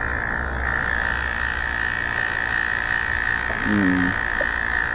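Steady chorus of frogs, a continuous high even drone, with one short lower-pitched sound about four seconds in.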